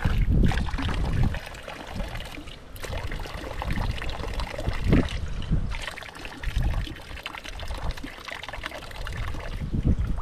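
Water trickling and pouring from a small roadside spring, unevenly, with a few brief lulls.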